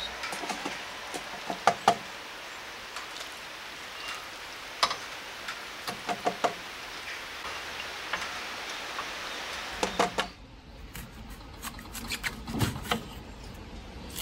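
Black bean paste (chunjang) frying in oil in a small cast-iron pot: a steady sizzle, with a spatula scraping and tapping against the pot as it is stirred. About ten seconds in the sizzle stops, and a knife works an onion on a wooden cutting board with a few light knocks.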